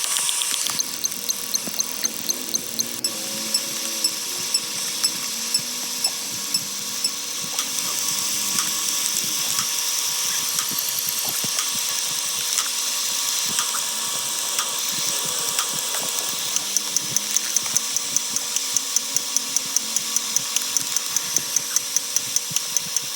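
Sped-up layered sound effects from a number-counting video: a dense buzzing jumble over a regular pulse of sharp clicks, about two a second at first, quickening to about three a second about two-thirds of the way in.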